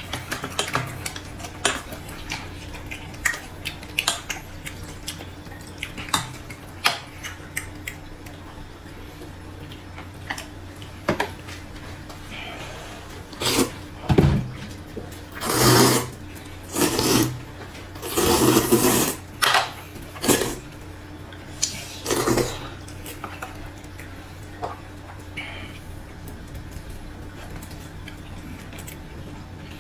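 Chopsticks and spoons clicking against bowls and a paper noodle cup. From about 13 seconds in comes a run of loud slurps as rice noodles are sucked up, about seven in nine seconds, one of them long.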